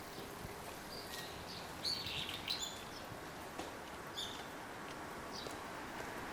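Brown-eared bulbul calling: short, shrill calls in scattered bursts, the busiest cluster about two seconds in, over a faint steady outdoor background.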